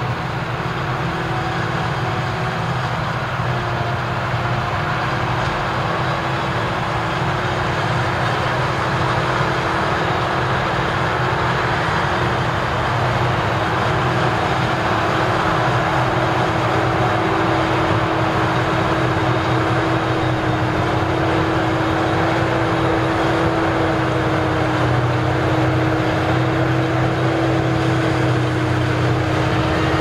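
Claas Jaguar forage harvester chopping maize and blowing it through its spout into a trailer, with the John Deere 7R tractor pulling the trailer running alongside: a steady machine drone with a constant hum, a little louder from about halfway through.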